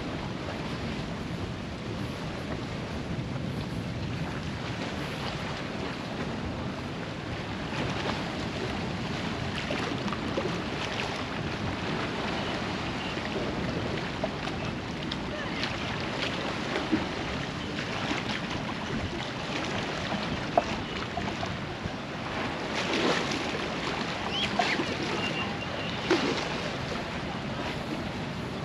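Seaside ambience: small waves washing against shoreline rocks, with wind across the microphone, steady throughout, and a few short clicks.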